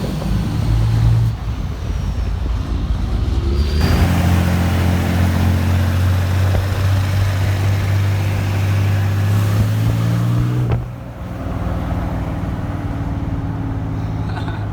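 Motor vehicle engine running steadily at low revs, a deep hum, with abrupt changes in the sound about 4 and 11 seconds in.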